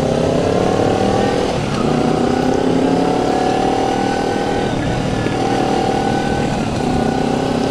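Sport motorcycle engine pulling through the gears under acceleration, heard from the rider's seat. Its note climbs and drops briefly at each of three upshifts, over steady wind rush on the microphone.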